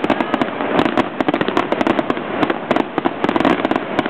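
Fireworks going off in a dense, continuous barrage of rapid cracks and pops over a steady crackle.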